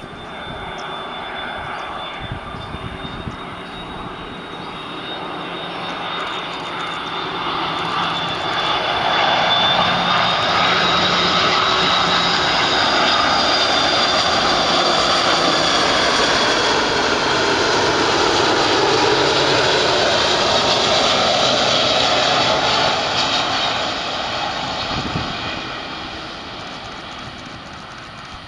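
Airbus A330-200's twin General Electric CF6-80E1 turbofans on landing approach. The engine noise grows louder as the jet comes in low, stays loud with a whine that slides in pitch as it passes close by, then fades as it flies on down toward the runway.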